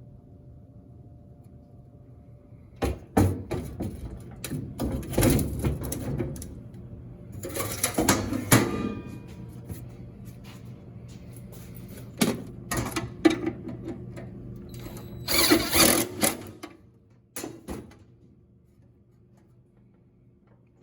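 Irregular metal clanks, knocks and scraping as parts of a Speed Queen top-load washer are handled and fitted during reassembly, over a faint steady hum.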